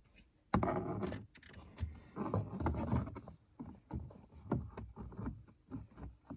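Plastic steering-column parts being handled: a rustling scrape lasting a couple of seconds, then a run of light clicks and taps.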